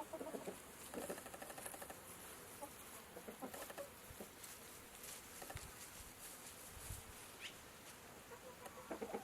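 Faint chicken sounds: scattered soft clicks and scratches, with one brief high chirp about seven and a half seconds in. No crowing.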